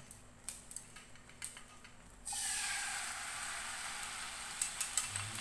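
Sauce poured into a hot nonstick frying pan on a gas burner, starting a sudden loud sizzle about two seconds in that slowly dies down. A few crackling pops come near the end; before the pour there are only faint clicks.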